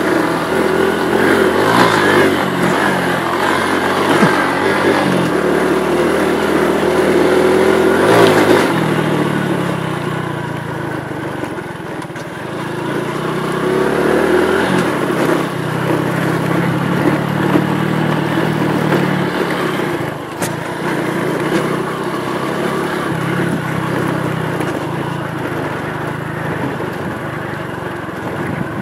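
Honda Pop 110i motorcycle's small single-cylinder four-stroke engine pulling along a dirt track, its pitch rising and falling again and again as the throttle opens and closes. It drops quieter about a third of the way in, then picks up again.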